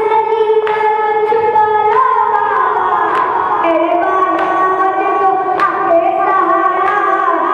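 A boy reciting a noha, a chanted mourning lament, into a microphone: long held notes in a high voice that slide slowly in pitch, with a sharp beat roughly every second.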